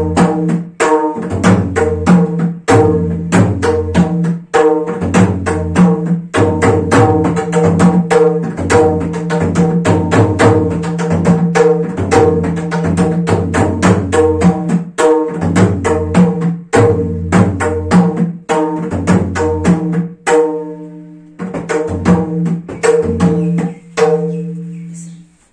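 Lalakhin, a Newar double-headed barrel drum, played by hand in fast Gai Jatra drum patterns: rapid strokes over a low and a higher ringing drum pitch. It breaks off briefly about three-quarters of the way in, then resumes and stops just before the end.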